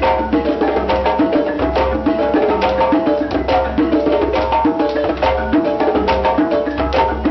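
West African djembe drumming with a balafon. The balafon plays a short repeating pattern of quick wooden notes over fast, dense hand strikes on the drum.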